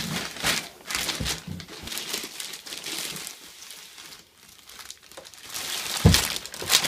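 Clear plastic bag crinkling and rustling in irregular strokes as a boxed network storage unit is slid out of it, with a thump near the end.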